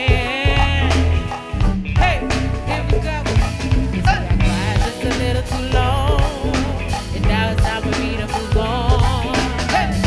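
Live go-go band playing: a steady drum groove and heavy bass under a wavering lead voice with vibrato.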